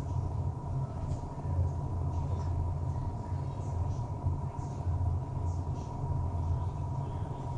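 Steady low indoor hum with a thin steady high tone over it, and a few faint small clicks.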